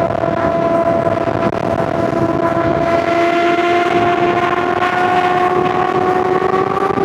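Honda CBR600RR inline-four engine running at high revs, its pitch climbing slowly and steadily.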